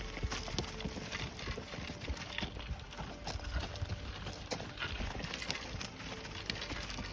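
Horse walking, its hoofbeats coming as an irregular run of short knocks over a steady low rumble.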